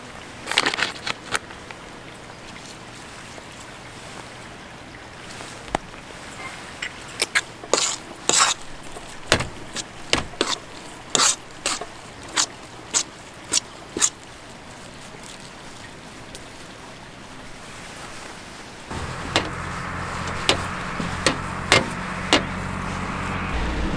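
A series of sharp clicks and knocks, then about two-thirds of the way through a motor vehicle's engine comes in suddenly and runs steadily with a low hum, with a few more clicks over it.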